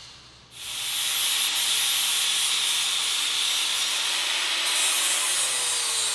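Corded angle grinder with an orange sanding disc grinding down the ears of a truck's steering knuckle, a steady grind that starts about half a second in.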